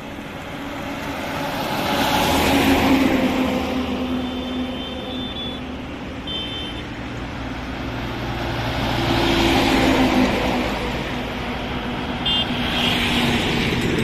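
Heavy trucks and other highway traffic passing close by. The engine and tyre noise swells and fades with each pass, loudest about three seconds in and again about ten seconds in.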